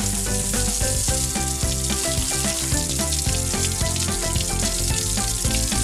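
A steady hiss of spraying water from a hose, added as a sound effect, over background music of quick, short notes.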